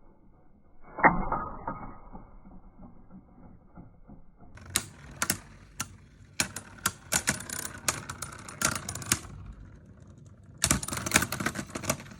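Two plastic Beyblade spinning tops, Dragoon V and Dranzer V, in a battle. About a second in there is a loud hit followed by a thin ringing tone, as the tops land and spin. Later come two long runs of rapid, sharp clicks and knocks as the tops clash.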